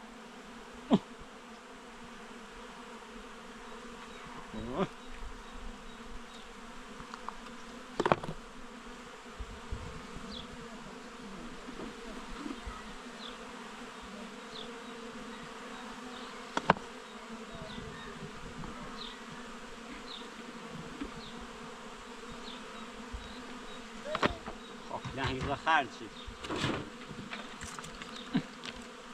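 Steady buzzing drone of insects, with sharp knocks now and then, several close together near the end, and a few faint high chirps.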